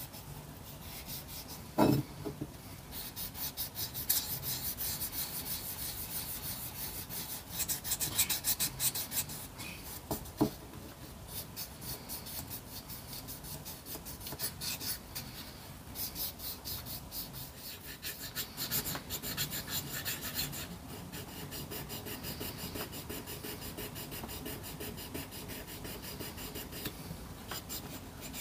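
Fine 1200-grit wet-and-dry paper rubbed by hand over the undercoated diecast cab of a model lorry, in quick back-and-forth strokes that come in bursts: flatting the undercoat before spraying. A sharp knock about two seconds in.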